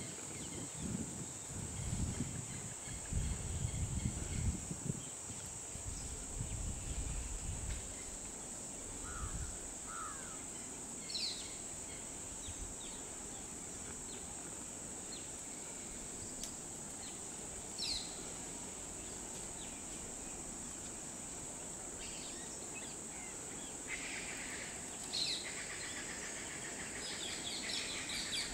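Outdoor tropical ambience: a steady high insect drone with scattered short bird chirps and calls, which grow busier near the end. Low rustling noise comes and goes over roughly the first nine seconds.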